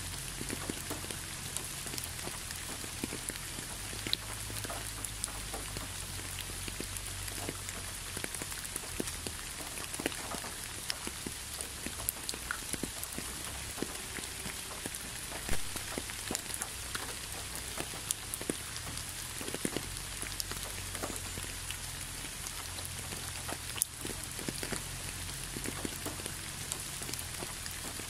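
Steady autumn rain falling, a continuous hiss with many large drops tapping separately close by; a few taps stand out louder, one about halfway through.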